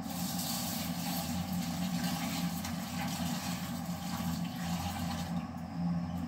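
Tap water running as dal is rinsed in a steel pot, stopping about five seconds in, over a steady low hum.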